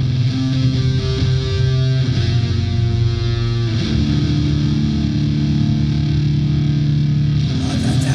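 Distorted electric guitar in a war metal recording, playing long held notes and chords through effects; the notes change about halfway through. Near the end the sound brightens and fills out.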